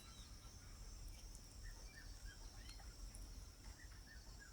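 Faint outdoor background of a steady high insect drone, with a few soft, short bird chirps scattered through it.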